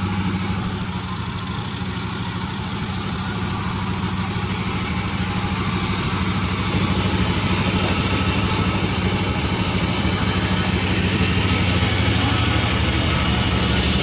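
Panda36 sawmill running: a steady low engine hum under the noise of the saw, growing brighter and a little louder about seven seconds in.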